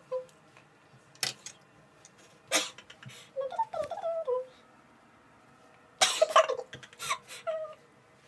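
Girls laughing in short, breathy bursts, with high wavering giggles about three to four seconds in and again near the end.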